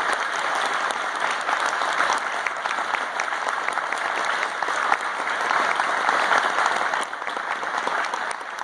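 Audience applauding, many overlapping claps, thinning out about seven seconds in.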